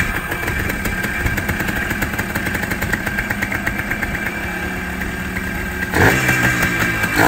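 Yamaha Blaster's freshly rebuilt two-stroke single-cylinder engine idling steadily, with a sudden blip of revs about six seconds in.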